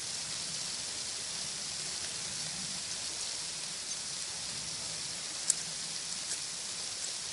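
Steady hiss of falling water, with a few sharp ticks, the loudest about five and a half seconds in.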